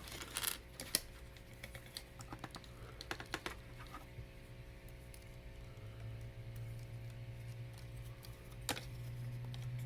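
Plastic Lego Hero Factory figure parts clicking and rattling as they are handled and fitted together, a flurry of small clicks in the first few seconds and one more click near the end, over a steady low hum.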